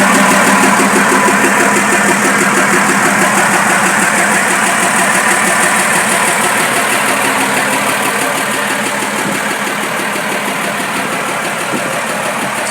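Fiat 190 truck's diesel engine idling steadily, running again after three years standing. It gets gradually a little quieter toward the end.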